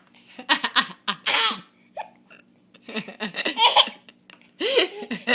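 A baby laughing in three bursts, with hiccups catching in the laughter. The hiccups seem to have been brought on by laughing hard.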